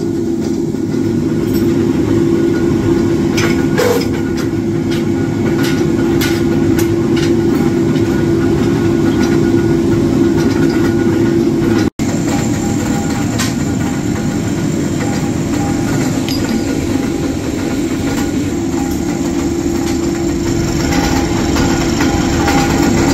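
Belt-driven flywheel power press running in a forging shop: a steady mechanical drone, with sharp metallic clanks now and then, mostly in the first half.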